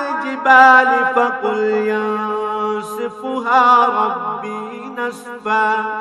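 A man reciting Qur'anic Arabic in the melodic, drawn-out style of tilawat, holding long notes that waver and slide in pitch. The voice fades out near the end.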